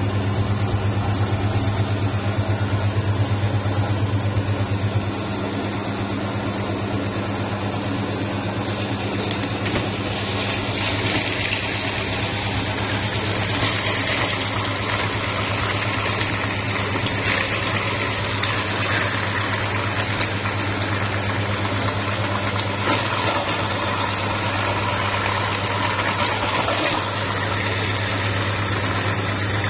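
Electric meat grinder's motor running with a steady hum while it grinds guava slices and chocolate through the cutting plate. From about ten seconds in, a rougher grinding noise of the food being forced through the plate rises over the hum.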